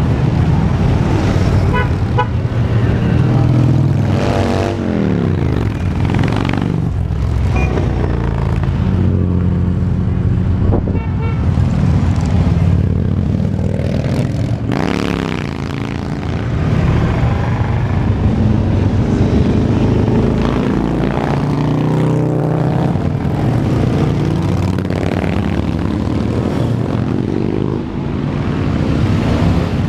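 Parade motorcycles riding past one after another, engines running at low speed, several passes dropping in pitch as they go by. A few short horn toots sound among them, and a car passes near the end.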